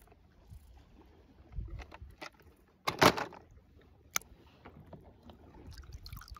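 Water splashing and sloshing in a plastic tub as a hand dunks small die-cast toy cars and lifts them out, with one loud splash about three seconds in and a sharp click about a second later.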